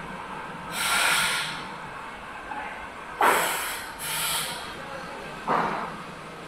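Steady machine hum of a mold workshop, broken by four short hissing bursts, each under a second long.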